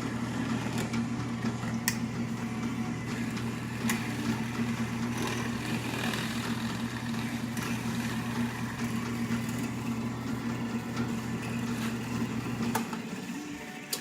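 Electric motor running with a steady low hum and a few sharp clicks, switched off about a second before the end.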